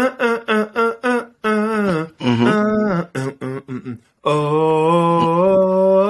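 A man singing a snatch of an old song unaccompanied, in short rhythmic phrases, then holding one long steady note from about four seconds in.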